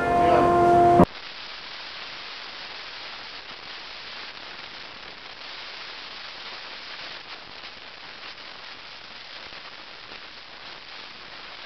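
The last chord of a sung guitar song rings with steady tones and is cut off suddenly about a second in. A steady, even hiss of background noise follows, with no distinct sound in it.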